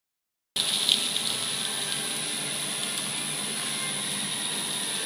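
Chip spreader for plant pots and trays running: a steady, even rushing noise of the machine and of wood chips pouring onto a tray, with a thin high steady whine over it. The sound starts suddenly about half a second in.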